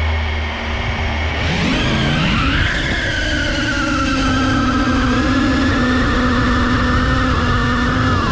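Small FPV quadcopter's electric motors and propellers spinning up about a second and a half in, the pitch rising as it lifts off, then running as a steady whine in fast flight, rising and falling a little with the throttle.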